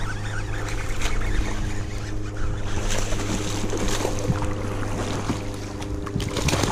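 Water rushing and splashing around a kayak as it moves down a river, over a steady low hum, with a few short knocks or splashes near the end.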